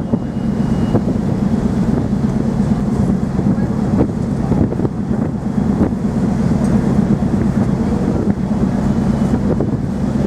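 Wind buffeting the microphone over the steady low hum of the ferry Pride of Canterbury's engines.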